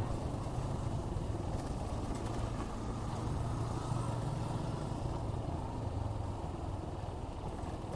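Suzuki Gixxer 155's single-cylinder engine running steadily while the motorcycle is ridden, with road and wind noise on the helmet-mounted camera.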